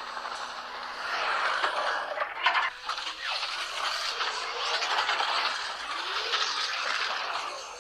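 Mechanical sound effect of irregular rattling, scraping and clicking, with a few brief sliding tones.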